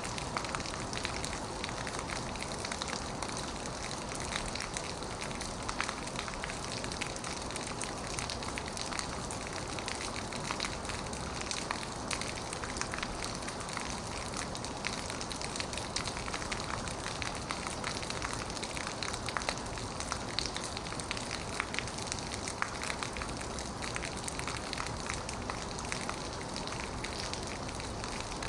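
Heavy rain falling on an old metal roof: a steady, dense hiss with many sharp individual drop hits.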